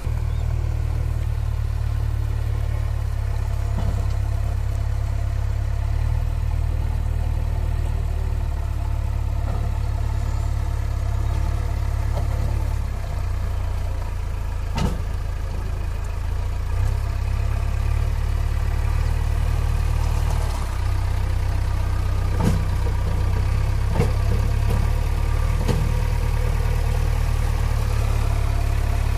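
JCB 3DX backhoe loader's diesel engine running steadily as the machine moves slowly, its low hum stepping up and down in level a few times. A few sharp knocks stand out, one about halfway through and three close together near the end.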